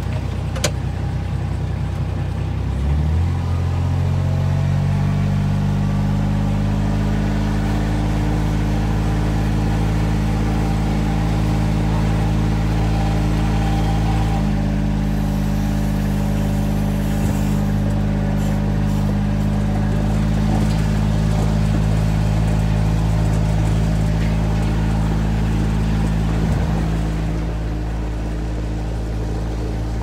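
Small utility vehicle's engine running as it drives along a gravel farm lane, rising in pitch as it gets up to speed over the first few seconds, then holding a steady drone and easing off slightly near the end.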